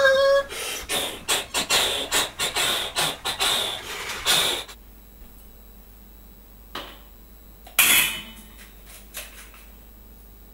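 A quick, irregular run of scraping and rubbing noises for about four and a half seconds. Then a quieter stretch with a few clanks of metal pots and lids, the loudest about eight seconds in.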